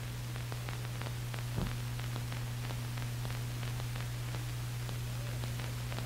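Steady low hum with a faint hiss and many small scattered clicks and crackles: the background noise of an old film soundtrack, with a slight bump about a second and a half in.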